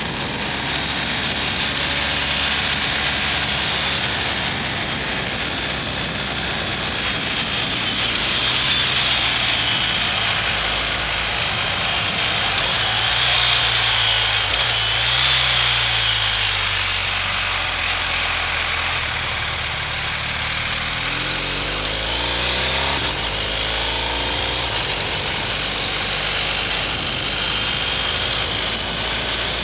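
BMW R1250 GS Adventure's boxer-twin engine running under way, with a steady rush of wind and road noise over the bike-mounted microphone. The engine note shifts in pitch about three-quarters of the way through.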